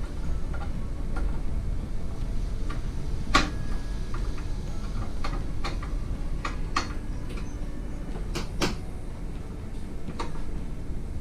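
Metal parts of a meat slicer clicking and knocking as they are handled during disassembly or reassembly. There are scattered sharp clicks, the loudest about a third of the way in, over a steady low rumble.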